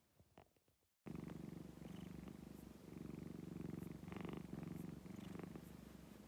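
Domestic cat purring steadily close to the microphone, the purr rising and falling with each breath; it starts about a second in after near silence.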